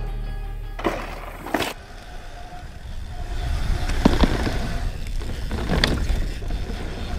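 Downhill mountain bike ridden over rough trail, heard from a camera on the bike or rider: tyres rumbling and scraping over dirt and rock with wind noise, and a few sharp knocks and clatters from hits on the trail, about a second in, at a second and a half, twice around four seconds and again near six.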